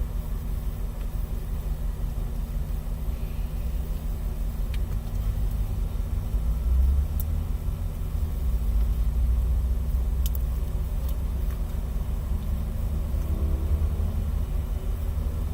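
Low rumble of a car's engine and running gear heard from inside the cabin, swelling somewhat from about five seconds in, with a few faint clicks.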